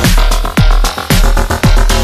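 Electronic dance music with a steady kick-drum beat about twice a second under sustained synth notes.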